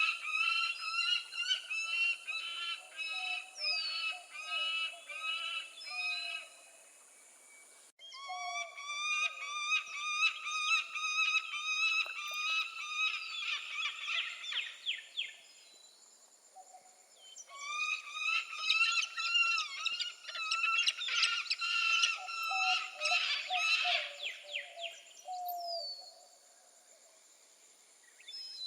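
Peregrine falcon calling: long series of rapid, repeated harsh notes in three bouts, the second starting abruptly.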